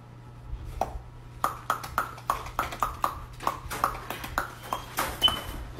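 A dog's teeth clicking and crunching on carrot pieces as it snaps them from a hand and chews: a quick series of sharp clicks, about three or four a second, starting about a second in.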